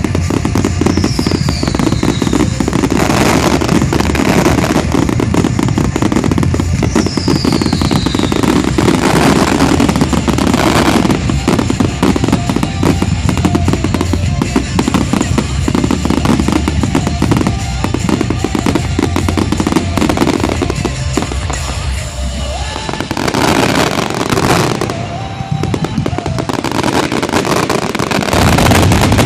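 Dense fireworks finale: continuous rapid crackling and loud shell bursts, with a short falling whistle about a second in and another around seven seconds. The show's pyromusical soundtrack plays underneath.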